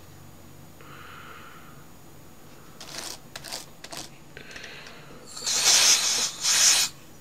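Can of compressed air sprayed over a laptop keyboard in two short hissing bursts near the end, blowing dirt out of the gaps between the keys. A few light clicks come before the bursts.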